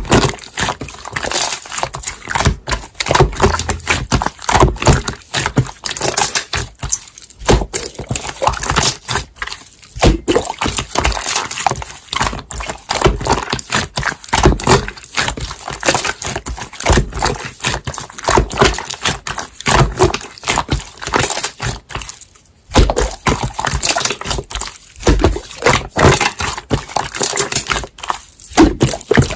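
Close, dense crackling and clicking in irregular rapid runs, with a few short pauses, like something being handled or crinkled right at the microphone.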